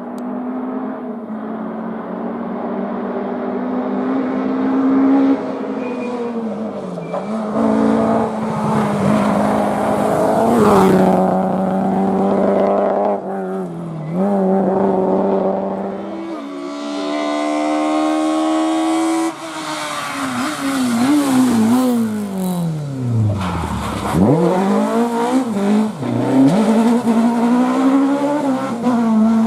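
Rally car engine revving hard and climbing through the gears, its pitch dropping at each shift, then lifting, braking and downshifting in a series of pitch swings, with one deep falling sweep about three-quarters of the way through.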